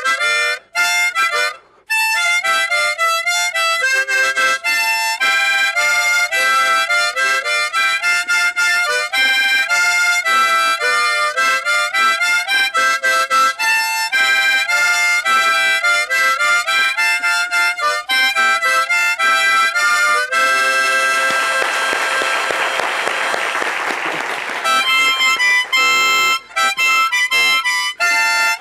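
Solo harmonica, cupped in both hands, playing a fast melody of short separate notes and chords. About twenty seconds in it shifts to a few seconds of long held chords with a rushing noise under them, then the quick notes resume.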